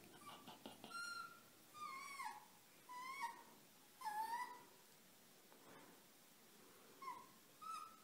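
Red fox kit whimpering in about six short, high squeaky calls, several falling in pitch, as it mouths a hand in play. There is a gap of a couple of seconds before the last two calls.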